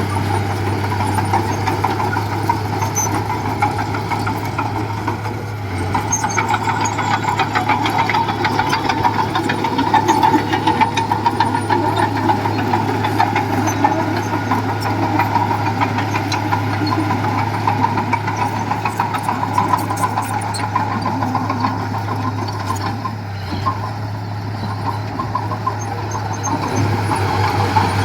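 Diesel engine of a Komatsu mini bulldozer running steadily under load, with a continuous fine rattle of the machine working.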